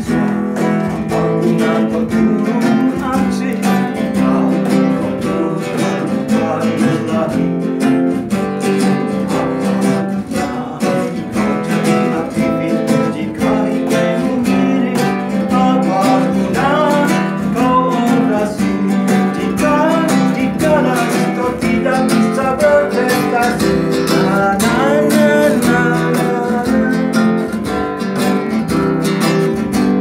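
Acoustic guitar strummed and played steadily, with a man singing over it.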